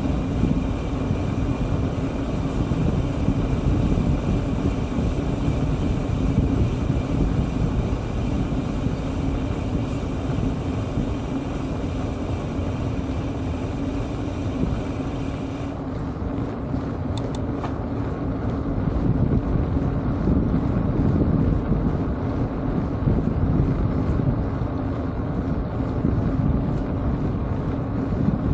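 Steady wind rush over the microphone of a camera mounted low on a moving bike, with a low rumble of tyres on the asphalt. The hiss above the rumble thins out suddenly about halfway through.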